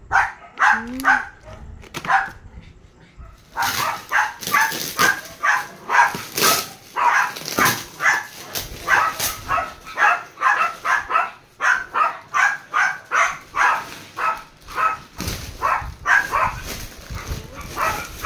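Dogs barking over and over, about two barks a second, starting a few seconds in.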